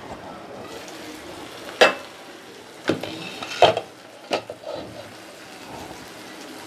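Glass lid lifted off a kadai of simmering masala gravy, with a few sharp clanks of glass and metal, the loudest about two seconds in. A faint steady sound of the gravy cooking runs underneath.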